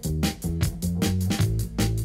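Background music for a title sequence: a steady, quick drum beat over a low bass line.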